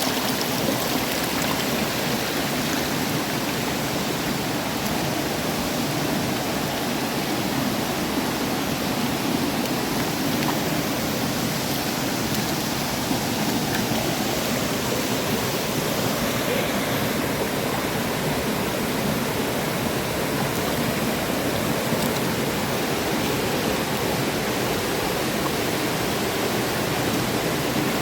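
River waterfall: a steady, unbroken rush of falling and flowing water.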